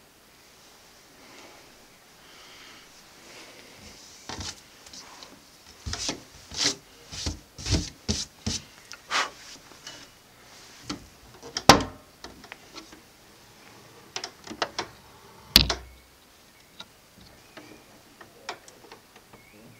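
Wooden cabinet of an old gramophone being handled and its lid opened: a run of irregular knocks and wood rubbing on wood, with two louder sharp knocks in the second half.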